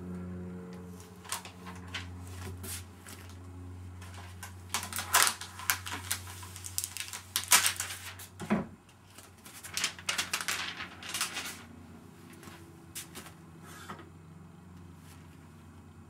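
Handling noise as the iMac is turned and examined by hand: a run of clicks, taps and rustles, busiest and loudest in the middle. Underneath is a low steady hum that stops with a dull thump about halfway through.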